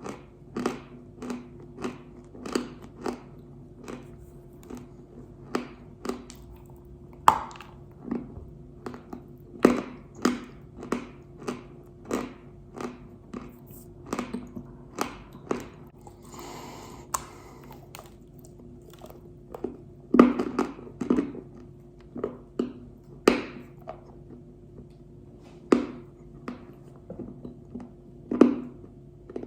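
Pink Uzbek clay, an edible chalk-like clay, being bitten and chewed close to the microphone: irregular crisp crunches about once or twice a second, some bites much louder than others, over a faint steady hum.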